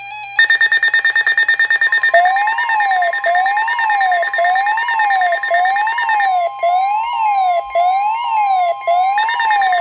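Electronic emergency-alert warning tones announcing a severe thunderstorm warning. A rapidly pulsing high beep starts about half a second in and pauses for a few seconds partway through. From about two seconds a warbling tone sweeps up and down about once a second over a steady tone.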